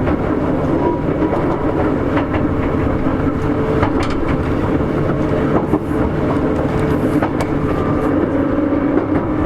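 Sotetsu 8000 series electric train running, heard from inside the car: a steady rumble of wheels on rail with the traction motors' hum, and scattered sharp clicks as the wheels pass over rail joints.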